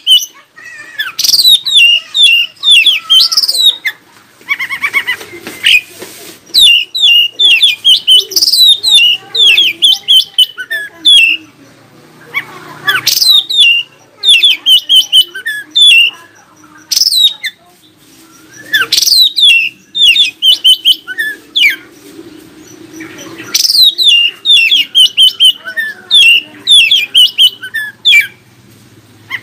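Oriental magpie-robin (kacer) singing loudly in bursts of rapid, varied whistled notes, many sweeping sharply downward, with short pauses between phrases.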